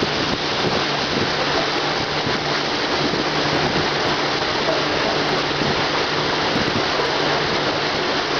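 Steady rushing noise of wind and water from a river tour boat under way, with a faint steady low engine hum underneath.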